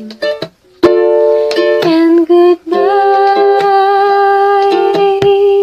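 Ukulele strummed in chords, with quick groups of strums and some chords left ringing for a second or more.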